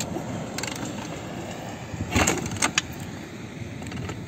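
Honda CRF450R's single-cylinder four-stroke being kick-started without firing: one hard kick about two seconds in with a metallic clank, followed by two lighter clicks. The engine does not catch; it is a bike that will not start.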